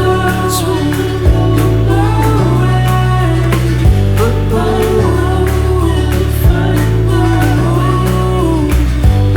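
Background music: a song with sung vocals over held bass notes and drums.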